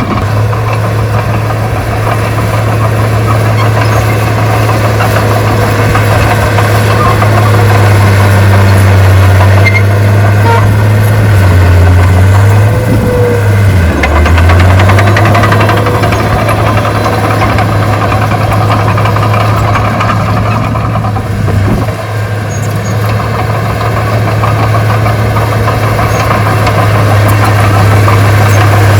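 Heavy diesel engine of earthmoving equipment running loud and steady, its note briefly dropping and recovering about halfway through.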